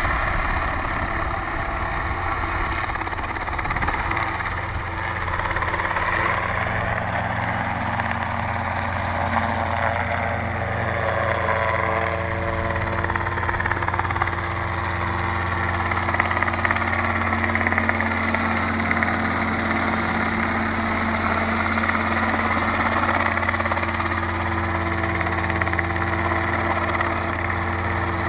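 Robinson R22 helicopter flying low and close: the steady drone of its piston engine and two-blade rotor, with a whooshing tone that sweeps down and back up as the helicopter moves past and turns.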